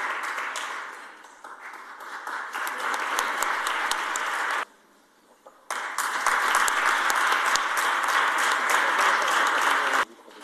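An audience applauding with a dense patter of clapping. The clapping thins out about a second and a half in, cuts off for about a second in the middle, then comes back louder.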